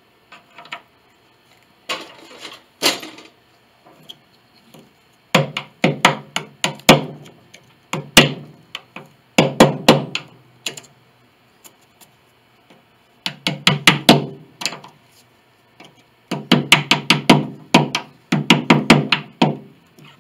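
Hammer tapping a hand tool (a chisel or screwdriver) into the piano's woodwork, in several runs of quick, sharp blows with short pauses between.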